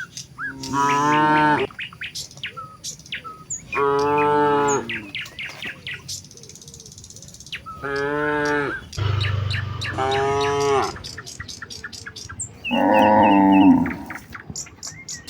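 A herd of cows mooing, several animals calling in turn: about five moos, each lasting about a second. Small birds chirp in the gaps.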